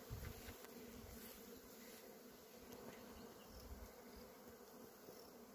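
Faint steady hum of many honeybees working flowering black locust (acacia) trees.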